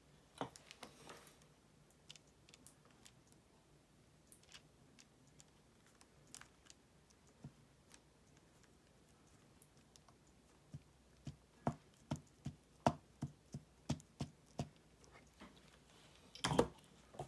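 Faint taps and clicks of a mini craft iron's metal soleplate being pressed and dabbed onto fabric pieces over a paper pattern. In the second half comes a run of about a dozen sharper taps, roughly two a second, and near the end a louder knock.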